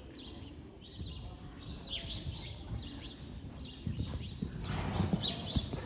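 Horse cantering on a sand arena floor: muffled hoofbeats that grow louder about four seconds in as the horse comes close.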